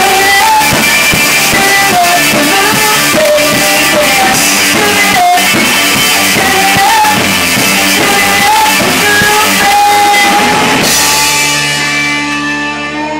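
Live rock band playing: a singer over electric guitar and drum kit. About eleven seconds in the drums and singing stop and a last held chord rings on, getting quieter.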